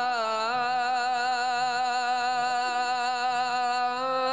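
Male voice singing the adhan, the Islamic call to prayer, drawing out 'Allahu Akbar'. The pitch slides down at the start, then settles into one long held note with slight ornamental wavering.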